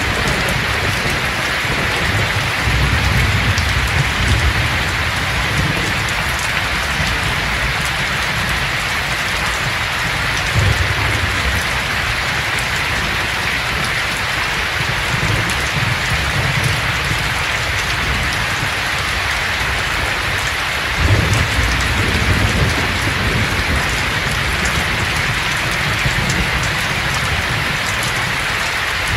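Steady rain falling, with low rumbles of thunder swelling a few times, the strongest about 21 seconds in.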